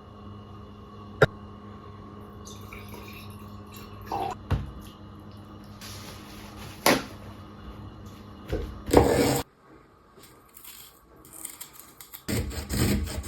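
Kitchen food-preparation sounds: a few sharp knocks and clatters and two short bursts of rushing noise over a steady low hum.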